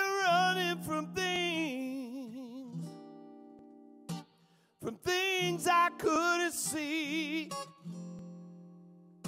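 A man singing with a strong vibrato over acoustic guitar. The first phrase is held and wavers for about two seconds, the guitar chord rings on alone, and a second phrase comes in about five seconds in. The guitar then rings and fades near the end.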